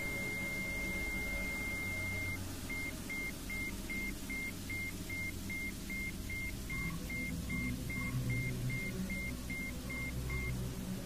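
A high, pure electronic tone held steady, then pulsing on and off as regular beeps about two and a half times a second, over a low sustained drone.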